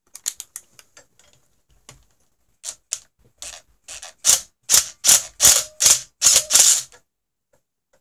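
Cordless DeWalt impact driver hammering in about a dozen short trigger bursts, each under half a second and growing louder, as an extractor socket bites onto a stripped brass Phillips screw to back it out. A few light clicks of the socket being handled come about a second before.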